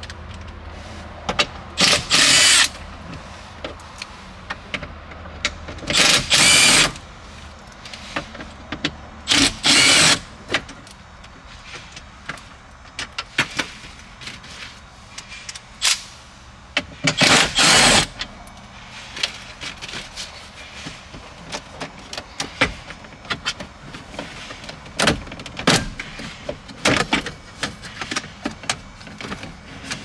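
Cordless drill-driver run in four short bursts, each under a second, taking out the screws of the plastic dash and steering-column trim. Between the bursts come scattered clicks and knocks of plastic trim being handled.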